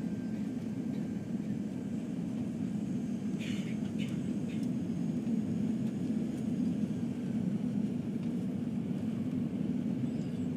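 Steady low cabin rumble of a four-engine Airbus A340-300 during its landing, heard from a passenger seat, getting slightly louder about halfway through. A few faint clicks come between about three and a half and four and a half seconds in.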